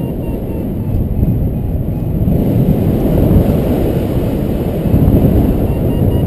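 Wind rushing and buffeting over the microphone of a paraglider in flight, with a variometer beeping faintly in short repeated tones near the start and again near the end.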